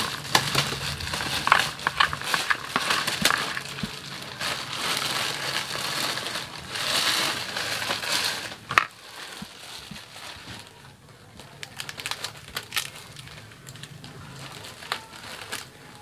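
Fresh banana leaf crinkling and rustling as chopped greens are spooned onto it and it is folded into a parcel. The handling is busiest for about the first nine seconds, then turns quieter and sparser.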